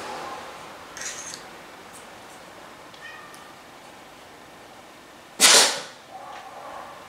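A blowgun fired once, about five and a half seconds in: a single sharp, loud puff of breath driving a dart out of the tube.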